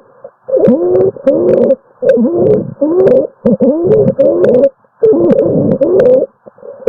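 Recorded abnormal lung sounds: musical tones that bend in pitch, in short stretches of half a second to a second with brief gaps between them, and scattered faint clicks.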